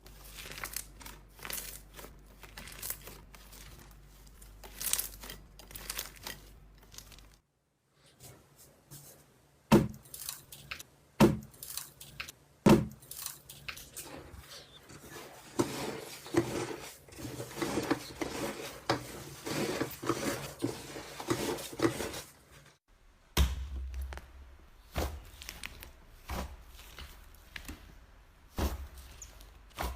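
Slime being squeezed and pressed by hand, a run of sticky crackles, pops and crinkling, in several short clips. Three sharp pops stand out about ten, eleven and thirteen seconds in.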